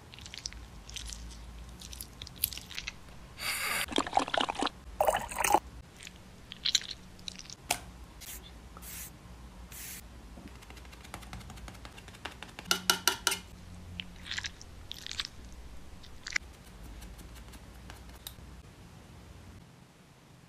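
Close-up makeup application sounds: scattered crackly clicks, taps and scrapes of makeup tools and fingers on skin and product, with louder crackly bursts about four and five seconds in and a quick run of clicks around thirteen seconds in.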